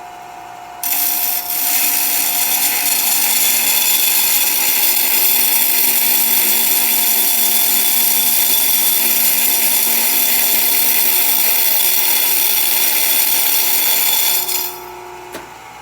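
Bench grinder motor running with a steady hum. About a second in, a loud, harsh grinding hiss starts as a wheel dresser is held against the spinning grinding wheel to reshape and clean its face. The hiss holds steady for about fourteen seconds, then stops shortly before the end, leaving the motor hum.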